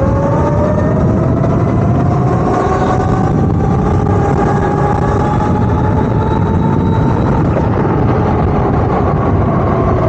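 Electric dirt bike's motor whine rising slowly in pitch as it gathers speed, over heavy wind rush and road noise.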